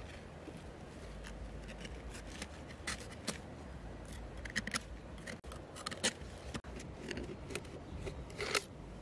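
Knife blade scraping and clicking against the shell of a large freshwater mussel as it is worked into the gap between the two halves to pry it open. Irregular sharp clicks and scrapes, the loudest near the end.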